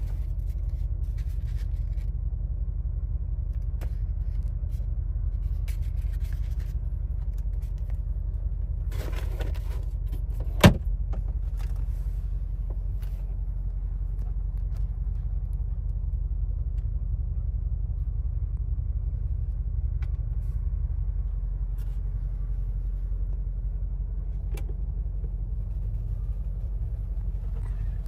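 2024 Mercedes-AMG G63's 4.0-litre biturbo V8 running steadily, a low rumble with no revving. A single sharp click comes about ten and a half seconds in.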